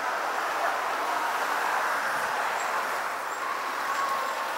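Steady street traffic noise: an even hiss of cars on the road.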